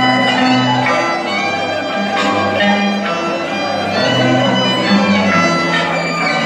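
Band music played over loudspeakers: a high melody on a violin-like instrument over a moving bass line, without pause.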